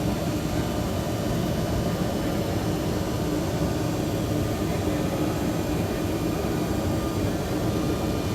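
Lihwoei CNC woodworking machine running, a steady machine hum with one constant tone throughout.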